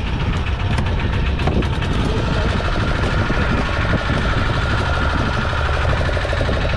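Fishing boat's engine running steadily with a low, even rumble. A faint steady whine comes in about two seconds in and fades near the end.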